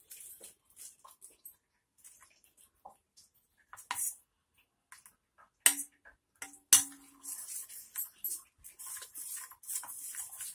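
A steel spoon stirring thin gram-flour batter in a small steel bowl. About six seconds in the spoon clinks sharply against the bowl twice, each time with a brief metallic ring, then it scrapes and swishes steadily through the batter.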